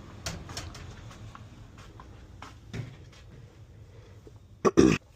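Scattered light clicks and knocks, then two loud thumps in quick succession near the end.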